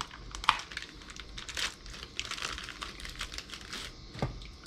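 Plastic packaging crinkling and rustling in the hands, with irregular small crackles and a couple of sharper clicks, about half a second in and again near the end, as computer data cables are handled out of their bag.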